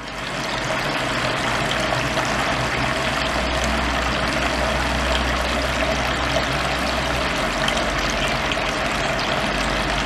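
Wall fountain water flowing steadily over the top lip and down its ribbed face into the basin, a continuous trickling wash with a low steady hum underneath. The clear tubing is fitted in the top spout to direct the flow to the back wall, leveling it and reducing splash. The sound comes up to full level within the first second.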